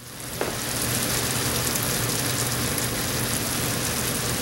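Cubes of chicken breast frying in olive oil in a pot: a steady sizzle that fades in at the start.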